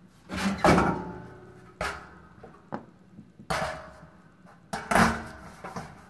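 Sheet-metal heating element housing of a Samsung clothes dryer being handled and knocked about: about five clunks and rattles, each fading out, the loudest about half a second in and near the end.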